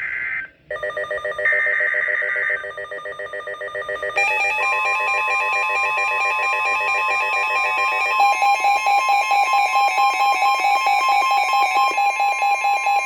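NOAA Weather Radio emergency alert: harsh buzzing SAME header data bursts, then the steady 1050 Hz warning alarm tone from about four and a half seconds in. Over them, several weather radios' alert alarms beep together, about two to three pulses a second, more joining partway through.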